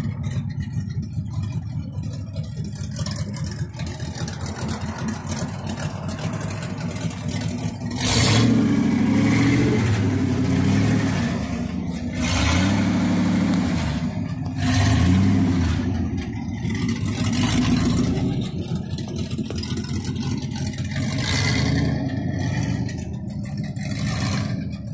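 1960 Buick's straight-piped 401 nailhead V8 idling, then revved repeatedly in short blips from about eight seconds in, each rise and fall of the open exhaust clearly louder than the idle.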